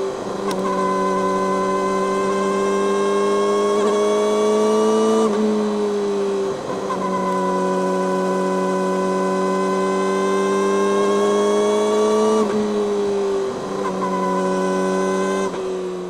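Yamaha YZF-R6's inline-four engine through an Akrapovic megaphone slip-on exhaust, running at high revs with its pitch slowly climbing. It dips briefly about five seconds in and again about twelve seconds in, and falls away near the end.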